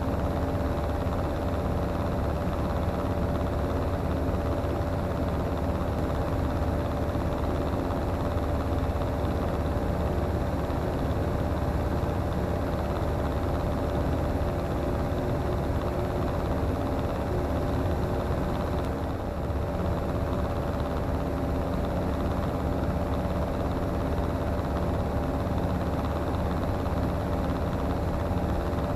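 Comco Ikarus C42C microlight's engine and propeller droning steadily in cruise flight, with a constant engine note and airflow noise.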